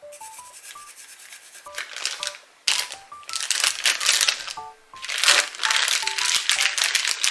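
A plastic bag crinkling and rustling in bursts as raw chicken is kneaded in marinade inside it, loudest in the second half. Light background music of short melodic notes plays under it.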